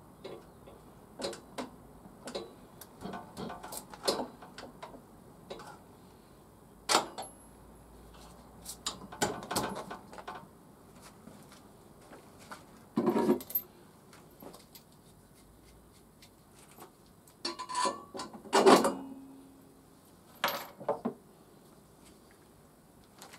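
Irregular metallic clinks, taps and knocks of hand work on a motorcycle's exhaust and footrest area, with parts and tools being handled and several louder knocks among them.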